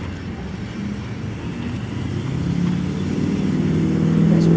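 A motor vehicle's engine, a low rumble that grows steadily louder as it comes closer, with a pitched engine hum coming in about halfway through.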